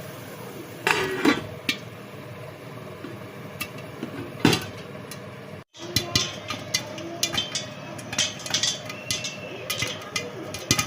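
Scattered clinks and knocks of household objects being handled, with a steady hum underneath; the clinks come thicker in the second half, after a brief cut to silence about halfway.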